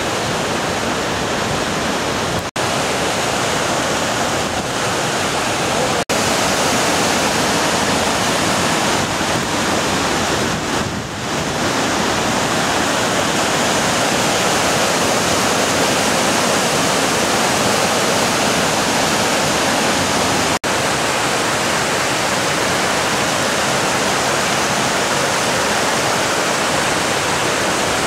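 Roaring River whitewater rushing and cascading over granite boulders: a loud, steady rush of water. The sound cuts out for an instant three times, at edits between shots.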